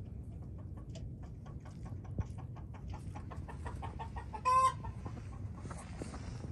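Chickens clucking in quick, steady runs of short clucks, with one loud, short squawk about four and a half seconds in.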